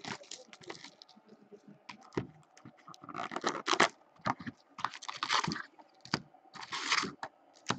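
Plastic shrink-wrap being torn and crinkled off a cardboard box of trading cards, then the box opened and the card packs pulled out: a run of short crackles, rustles and scrapes, busiest in the second half.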